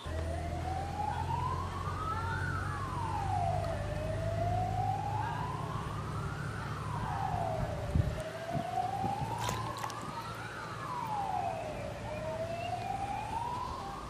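A wailing siren whose pitch climbs slowly and falls back more quickly, repeating about every four seconds, over a steady low hum.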